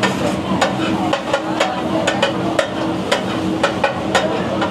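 A metal spatula chopping and scraping on a large flat griddle (tawa), striking it in irregular sharp clacks about three times a second, over the sizzle of food frying.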